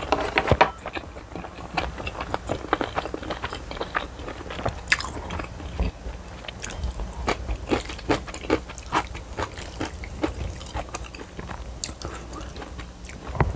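A person chewing and biting while eating spicy tteokbokki and crunching yellow pickled radish: a steady run of small wet clicks and crunches.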